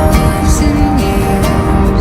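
Background song: soft, tender music with plucked guitar and a sung melody.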